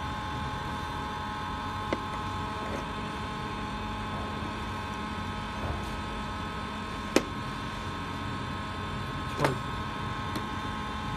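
Steady electrical hum made of several held tones, from the portable induction heater's power unit, with a sharp click about seven seconds in and a short knock near nine and a half seconds.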